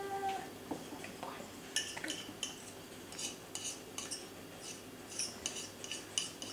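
A spoon scraping and clinking against a feeding bowl, many short sharp clinks in quick succession from about two seconds in, as baby food is scooped up. A baby's brief hum is heard at the very start.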